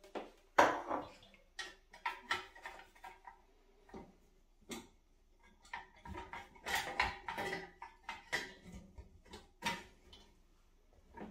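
Irregular metallic clinks, knocks and rattles as a tin-can cooler on a copper stand is handled and fitted onto the copper spirit pipe of an alembic still. The loudest knock comes shortly after the start, with a busy cluster of knocks around the middle.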